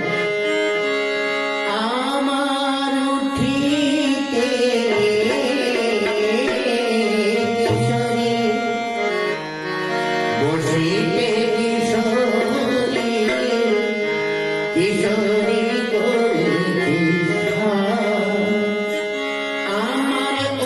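A devotional name-song (nam gan) sung to Indian musical accompaniment with hand drums and long held instrumental notes; the voice comes in about two seconds in, after a short instrumental opening.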